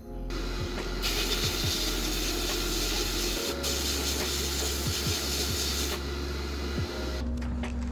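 Sandblasting cabinet in use: a loud hiss of compressed air and abrasive blasting from the gun, starting and stopping in bursts as the trigger is worked, with a steady low hum underneath. The blasting cuts off near the end.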